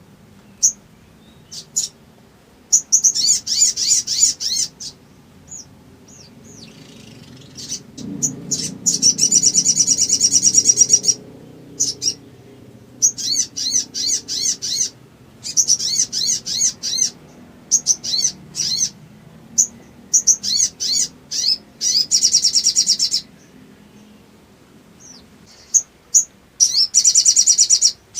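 Sogok ontong (sogon) songbird singing hard. It gives high, rapid trilled bursts of one to three seconds, several times, with short single chirps between them.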